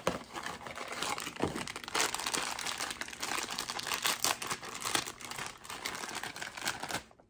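A Funko Mystery Minis cardboard blind box is pulled open by hand and the black foil bag inside is crinkled and torn open. It makes a continuous crinkling with many sharp crackles, stopping near the end.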